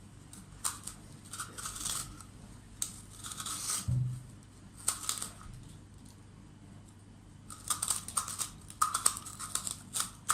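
Metal dolma corer scraping and gouging the hard flesh out of a raw black radish: short crunchy scraping strokes in several bursts with pauses between, quickest near the end, as the radish is hollowed down to a thin base. A low knock about four seconds in.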